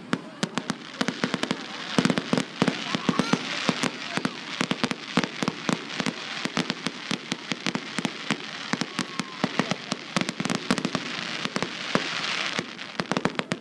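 Fireworks display: a rapid, dense run of sharp bangs from bursting shells, several a second, over a continuous crackle, with a louder hissing crackle swelling near the end.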